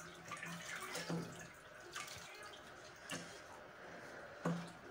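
A few soft splashes and drips of water in a shallow plastic basin as a small wet Siamese kitten is handled and steps about in the water.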